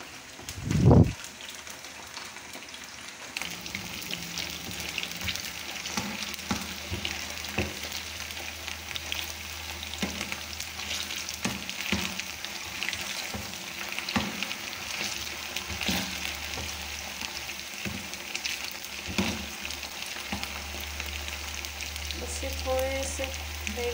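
Potato finger chips deep-frying in hot oil in a wok: a steady sizzle with many small crackles and pops. A single loud thump comes about a second in, and the sizzle grows louder a few seconds in.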